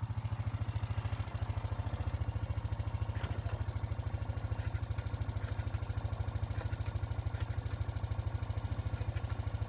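2007 Honda Foreman ES ATV's single-cylinder engine idling steadily, with an even, rapid pulse.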